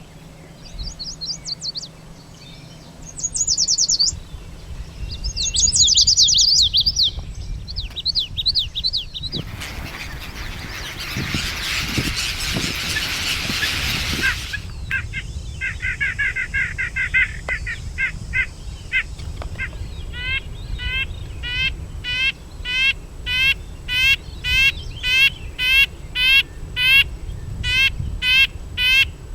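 Several different birds singing one after another: high, fast trills in the first third, a lower trill after the middle, then a series of short rising call notes repeated about twice a second. A loud rushing noise with no tone interrupts for about five seconds in the middle.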